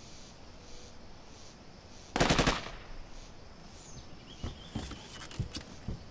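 A short burst of automatic gunfire about two seconds in, a rapid string of shots lasting about half a second. It is followed by several fainter, separate knocks.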